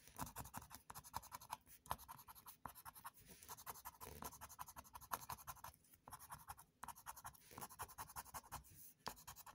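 Faint, rapid scraping strokes of a wooden scratching tool rubbing the latex coating off a lottery scratch ticket.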